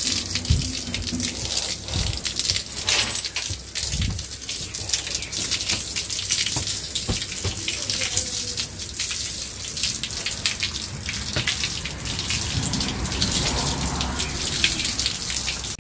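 Water from a hose jetting onto a concrete floor and wall: a steady hiss with constant splashing.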